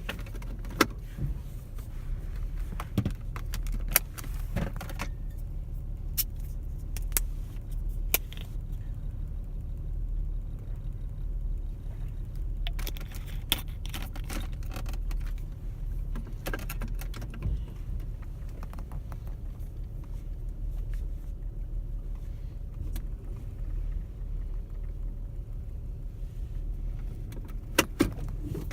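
Steady low rumble of a car heard from inside the cabin, with scattered light jingling and clicking at irregular moments.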